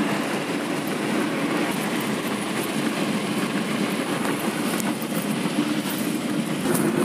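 Steady road and wind noise inside a moving car travelling along a highway, a continuous low rumble.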